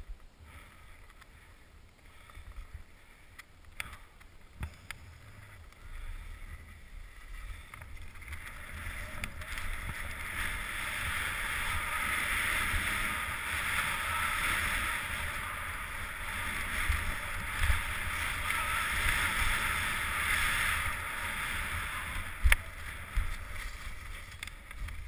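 Skis hissing and scraping over packed snow during a downhill run, building up about eight seconds in and easing off near the end, over a low rumble of wind on the microphone. A few sharp clicks stand out.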